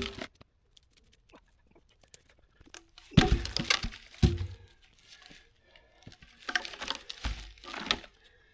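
Tree branches and brush being handled and dragged: twigs crackling and scraping in two spells, with heavy thuds about three and four seconds in and again near the end.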